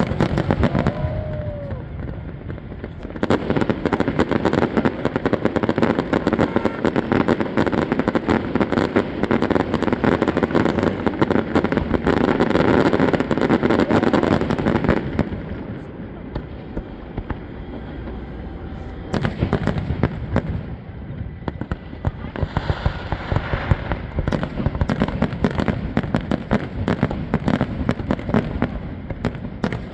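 Fireworks display: dense rapid crackling and popping of bursting shells, heaviest from about three to fifteen seconds in, easing off for a few seconds, then building again from about nineteen seconds.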